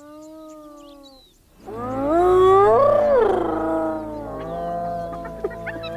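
Long, drawn-out wild animal calls that swell and glide up and then down in pitch, loudest about three seconds in, after a softer held call in the first second.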